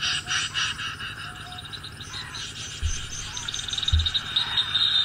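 Recorded snipe calls played as a lure: quick, repeated, chirping calls that run into a fast ticking trill in the second half. Two dull low thumps come about three and four seconds in.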